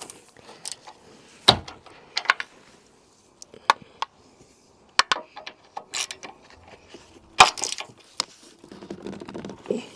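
Hand tool working a tight front wing bolt on a car, a bolt that had not been slackened beforehand: scattered sharp clicks and knocks at irregular intervals, the loudest about seven seconds in.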